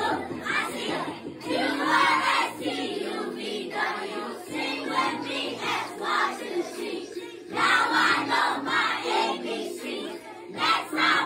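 A room full of young children shouting and cheering excitedly together, many voices at once, with a short lull about three-quarters of the way through.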